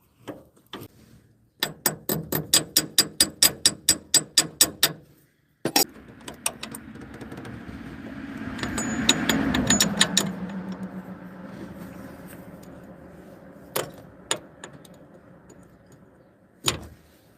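Ratchet wrench clicking rapidly and evenly, about five clicks a second for some three seconds, as a castle nut is run down on a ball joint stud. It is followed by a longer mechanical rattle with a low hum that builds and then dies away, and a few separate metal knocks near the end.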